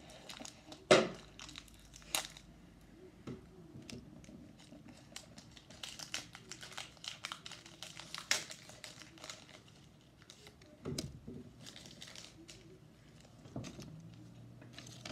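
Foil Pokémon booster-pack wrappers being torn open and crinkled by hand: an irregular run of sharp crackles, the loudest a snap about a second in.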